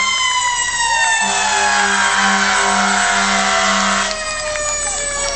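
Fire ladder truck's siren wailing, its pitch slowly falling as it winds down. About a second in, a long air-horn blast sounds over it for about three seconds.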